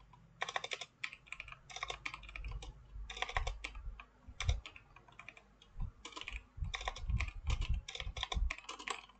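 Typing on a computer keyboard: irregular runs of keystrokes with brief pauses between them.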